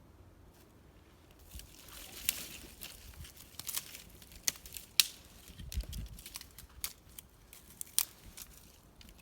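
Dry tinder crinkling and crackling in an irregular run of small snaps, the sharpest about five and eight seconds in.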